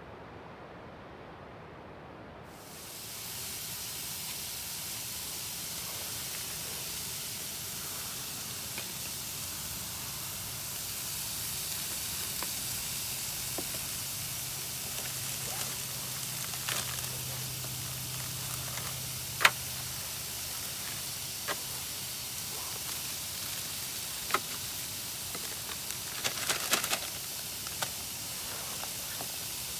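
Food frying in a pan: a steady sizzle that starts a few seconds in, with occasional sharp pops and crackles, one cluster of them near the end.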